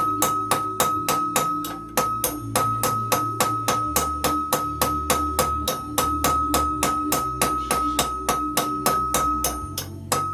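Background music with a steady beat of about four strikes a second over a changing bass line.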